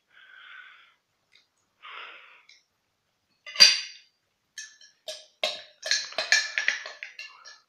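A person breathing close to the microphone twice, then a sharp click and a quick run of clicks and scrapes.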